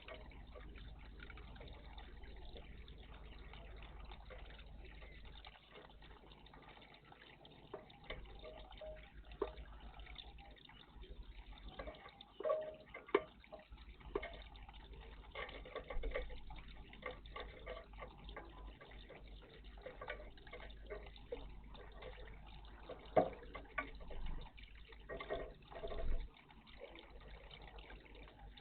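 Small songbirds bathing in a birdbath, water splashing and dripping in short irregular bursts, busiest from about a third of the way in.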